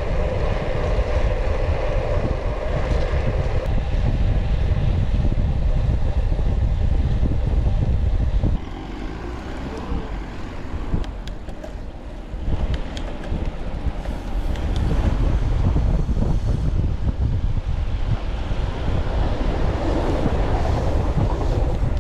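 Wind rushing over the microphone of a road bike moving at speed, a steady low rumble that drops quieter for a few seconds about halfway through before coming back.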